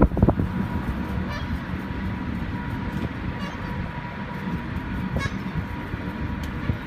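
Seagulls giving short calls every few seconds over a steady low rumble and a faint hum.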